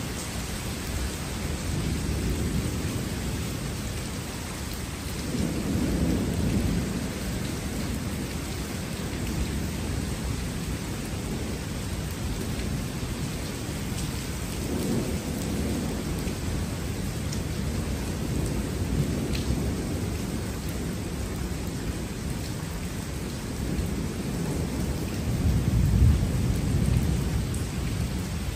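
Thunder rumbling in several low, rolling swells over steady rain. The loudest roll comes near the end.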